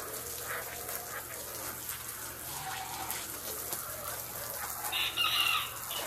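Water spraying from a garden hose wand onto a wooden deck, a steady hiss. A bird calls briefly about five seconds in.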